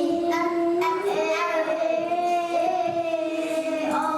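A group of young children chanting a word back together in a drawn-out, sing-song way, their voices held long on each syllable.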